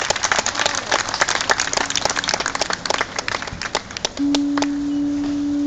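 Crowd clapping and applauding, the claps thinning out after about three seconds. About four seconds in, a single steady horn-like note starts and is held.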